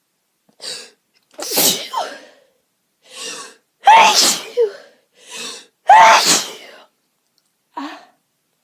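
A person sneezing three times in a row, about two seconds apart, each loud sneeze preceded by a short, sharp intake of breath.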